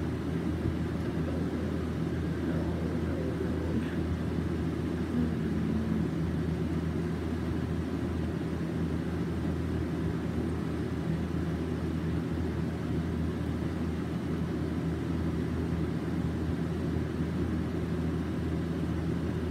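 Steady low rumble with a constant hum underneath, unchanging throughout.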